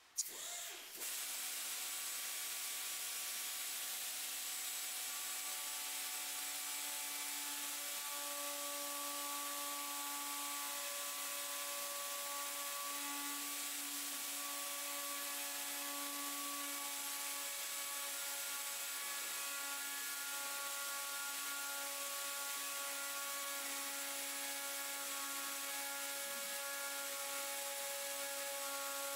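Rotary tool with a pointed carbide grinding bit running steadily as it grinds a V-groove across a crack in a plastic headlight tab, preparing it for welding. It starts about a second in and holds an even hiss with a faint steady whine.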